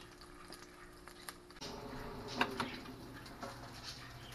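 Faint crackling and small ticks from hot food. About a second and a half in, a low steady hum starts, from the air fryer running, and a clack about two and a half seconds in comes from its basket being handled.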